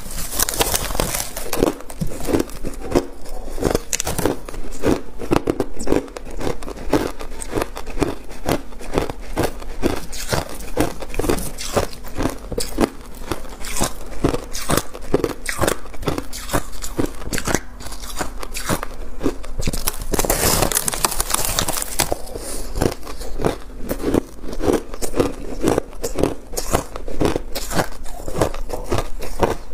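Close-up crunching of packed crushed ice being bitten and chewed: a quick, steady run of crisp crunches, with a louder, longer crunch about two-thirds of the way through.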